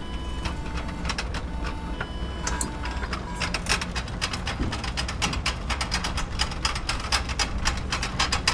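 Hospital machine ambience: short electronic beeps over a steady low hum, then from about two and a half seconds in a rapid run of mechanical clicking that goes on to the end.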